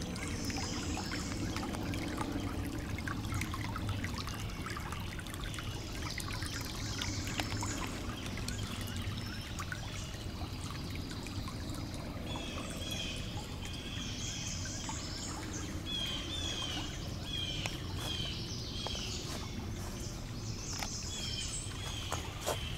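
A small stream trickling and burbling steadily, with songbirds singing over it. From about halfway through, one bird repeats a short chirp again and again.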